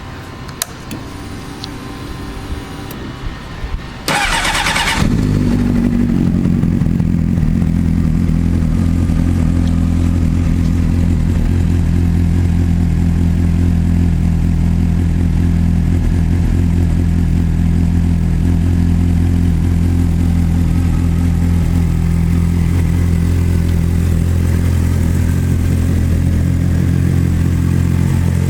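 A 2003 Honda CBR600RR's inline-four is cranked about four seconds in with a brief starter whir, catches, and then idles steadily and loudly through a full Yoshimura exhaust.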